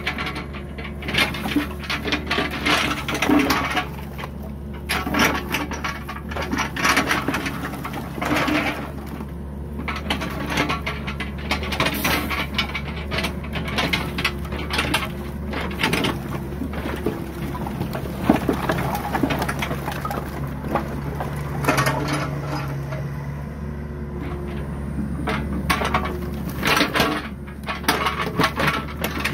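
New Holland 50.2 mini excavator's diesel engine running steadily, while split firewood logs clatter and knock against one another in irregular bursts as the machine shifts the pile.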